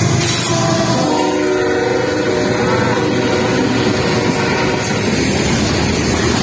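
Diesel freight train passing, its locomotive horn holding a chord through the first few seconds over the steady rumble of engines and wheels on the rails.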